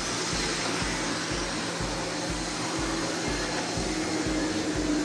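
Bachmann HO scale diesel locomotives running in a pair and pulling freight cars along model track: a steady rolling rumble and motor whir, with a low pulse repeating about three times a second and a faint steady whine that grows clearer in the second half.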